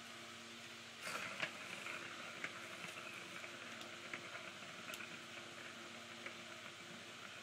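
A plastic ball rattling as it rolls around the track of a plastic circular cat track toy, with sharp clicks and taps as a kitten paws at it; it starts about a second in and eases off toward the end, over a faint steady hum.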